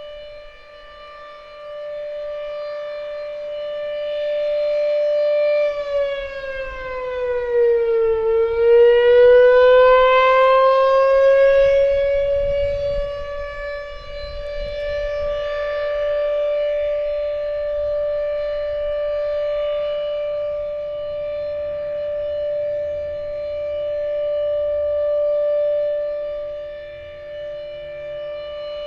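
Federal Signal RSH-10 rotating outdoor warning siren sounding a steady single-tone alert, swelling and fading in loudness. About six seconds in, its pitch sags, then climbs back up to the steady note by about fourteen seconds in.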